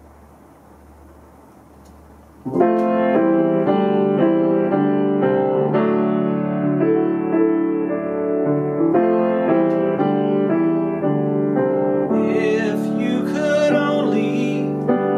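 Grand piano played in chords, starting about two and a half seconds in after faint room hiss. A man's singing voice joins the piano near the end.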